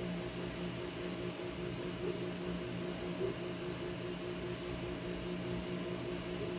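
3D printer running: its stepper motors and cooling fans make a steady hum with a quick, regular pulsing whine over it.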